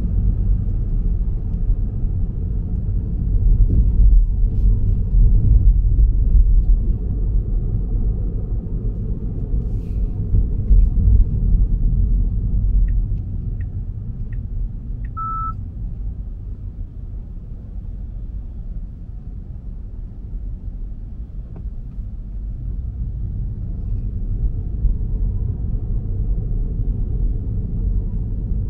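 Car driving in city traffic: a steady low rumble of engine and tyres on the road, easing off a little past halfway. A few light ticks and one short, high beep come about halfway through.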